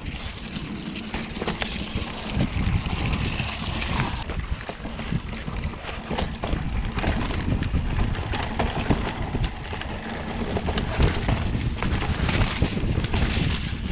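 Mountain bike riding over a rough, muddy trail: tyres rolling and squelching through mud, the bike rattling and clicking over bumps, and a low rumble of wind on the camera microphone.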